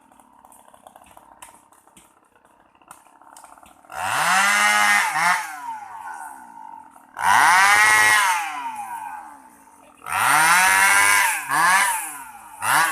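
Chainsaw idling faintly, then revved hard three times, about three seconds apart, cutting sengon wood; each time the engine climbs in pitch, holds, then falls back to idle. A short fourth rev comes near the end.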